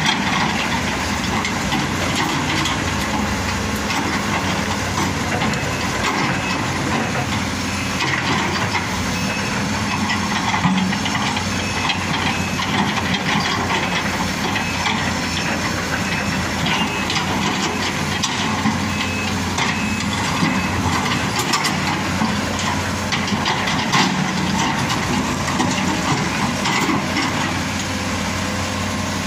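Hitachi Zaxis 210F excavator's diesel engine running steadily under load, while its steel bucket scrapes and knocks against large rocks, with repeated stone-on-metal clatters and a few louder knocks.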